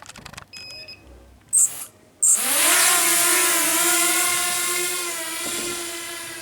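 Walkera F210 racing quadcopter's brushless motors spinning up with a rising whine about two seconds in, then holding a steady high whine that slowly fades. A few short electronic beeps and two brief bursts of noise come before it.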